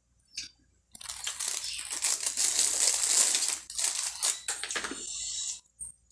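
Dense crinkling and crunching of snack biscuits being broken up by hand, starting about a second in and stopping shortly before the end.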